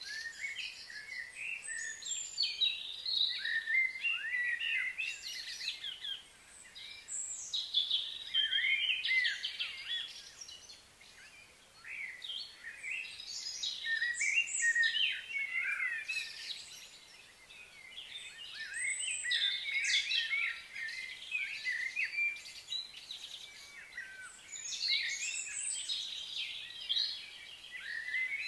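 Several birds chirping and singing, many short quick calls overlapping in busy spells with brief lulls between them.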